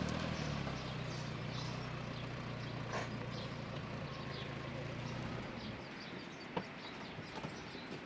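An engine running steadily, dying away about five and a half seconds in, while birds chirp. A sharp click about six and a half seconds in.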